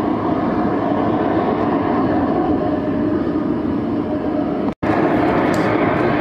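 Steady rumble of a Boeing 767-200 freighter's jet engines as the aircraft rolls slowly along the runway, heard from far off. The sound cuts out for an instant about three-quarters of the way through.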